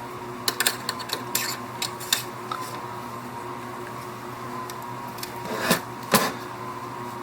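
Epson U220 printer's carriage guide rod being handled and fitted into the printer frame: a run of small clicks and taps, then two louder knocks near the end, over a faint steady hum.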